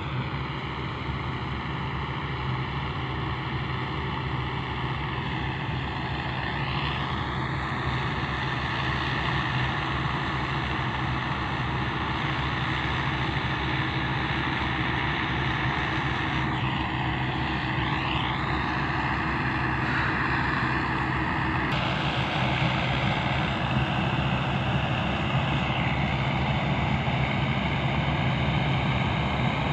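A combine harvester's diesel engine and threshing machinery run steadily while cutting rice, a low hum with a high whine over it. It grows slowly louder as the machine comes closer.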